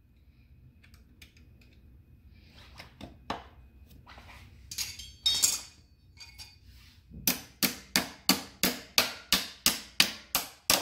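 Scattered metal clicks and clinks of a footpeg spring tool and spring being set against a motorcycle footpeg. Then, from about seven seconds in, a fast, even run of sharp metal-on-metal taps, about three a second, as channel-lock pliers hammer the footpeg pivot pin through.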